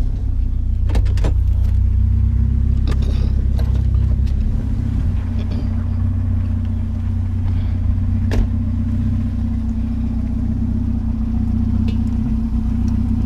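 Vehicle engine running with a steady low hum, with a few sharp clicks or knocks over it.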